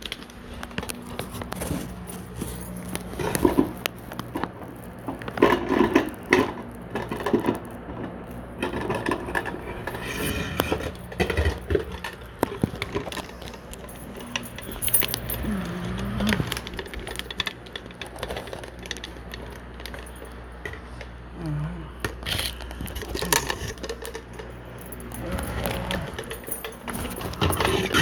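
Irregular clicks, knocks and rattles, with short bursts of rustling, over a steady low hum.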